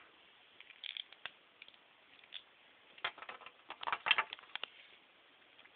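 Faint, scattered small plastic clicks and rustles from hands working the helmet off a G.I. Joe action figure, in two loose clusters, about a second in and again from about three seconds in.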